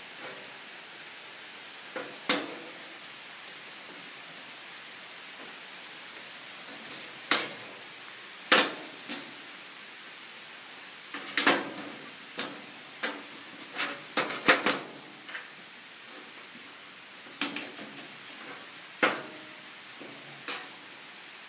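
Stainless steel sear-burner lid on a Vermont Castings gas grill being lifted and let down by hand: about a dozen irregular sharp metal clanks and rattles, coming thickest around the middle, over a faint steady hiss. The lid's fit is what the owner calls a manufacturing defect.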